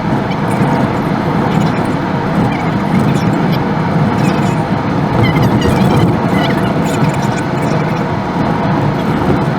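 Steady car driving noise, a dense rumble of road and engine sound with no breaks.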